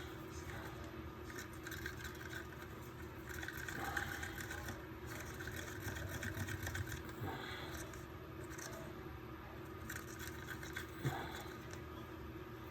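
Faint scraping and rubbing of a stir stick in a cup of epoxy resin as colourant is mixed in.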